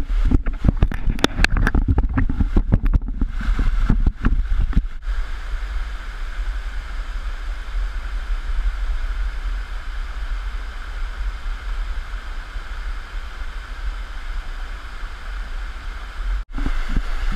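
Waterfall water rushing over rock terraces. For the first five seconds the water is close by, splashing, with knocks over a low rumble. After that it settles into a steady rush of the cascades, which breaks off briefly near the end before close splashing returns.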